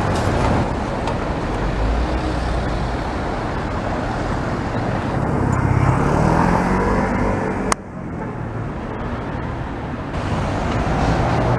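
Street traffic noise, with a car passing close at the start. Around the middle a motor tone rises in pitch, then a sharp click about two-thirds in, after which the sound suddenly drops before building again near the end.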